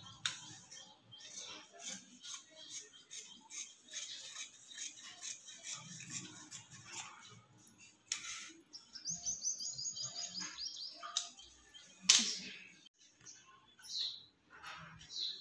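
Cotton fabric rustling as it is handled and folded, with high bird chirps; a quick run of evenly spaced chirps comes about two-thirds in, and a sudden loud noise stands out near the end.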